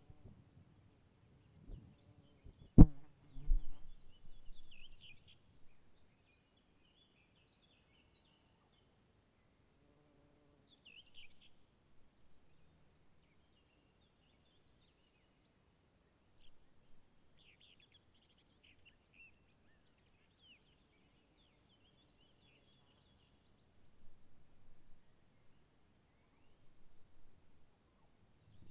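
Steady high-pitched insect trill, cricket-like, with faint short chirps over it. A single sharp knock comes about three seconds in, followed by a few seconds of low rumbling.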